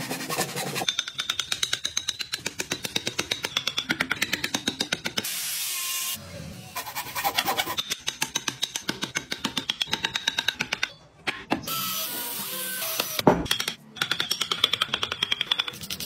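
Hand saw cutting into a block of wood in fast, regular rasping strokes, in runs broken by short pauses, with a sharp knock about 13 seconds in.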